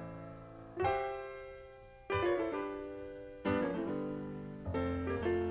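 Song intro played on a keyboard: full chords struck about every second and a bit, each left to ring and fade.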